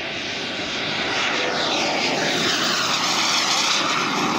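Turbine engine of a large 1/3.5-scale BAE Hawk 100 model jet flying in low toward the listener: a steady jet rush and whine that grows louder throughout, with sweeping, phasing tones as it closes in.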